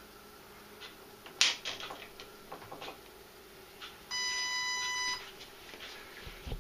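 A few sharp clicks and rattles of handling, then about four seconds in a single steady electronic beep about a second long from the RC boat's radio gear.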